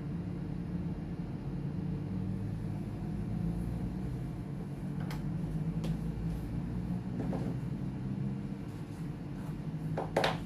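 A few light clicks and taps of small laptop parts and tools being handled, the loudest pair near the end, over a steady low hum.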